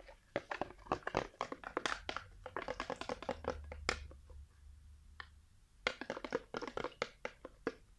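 Metal spoon stirring a liquid mix of body wash and soap in a plastic bucket: quick, irregular clicks and scrapes of the spoon against the bucket, with a brief pause about two-thirds of the way through.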